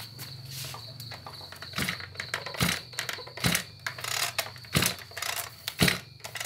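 Spring-assisted recoil starter of a Maruyama BigM BC300RS-1 30 cc two-stroke brushcutter being pulled over and over. From about two seconds in it makes a short rasping stroke about once a second as the rope turns the engine over, and the engine does not catch.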